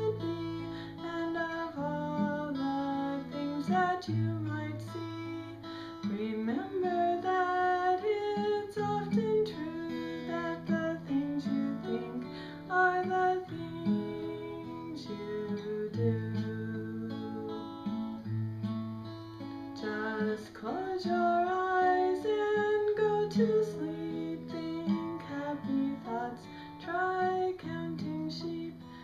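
A woman singing a slow lullaby, accompanying herself on acoustic guitar.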